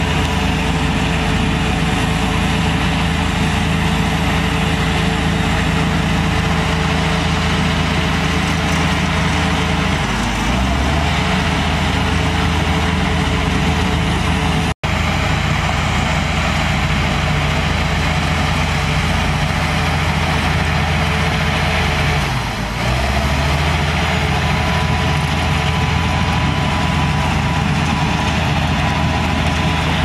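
Crawler bulldozer's diesel engine running steadily as the machine pushes mud with its blade. The engine note dips briefly twice, and the sound cuts out for an instant about halfway through.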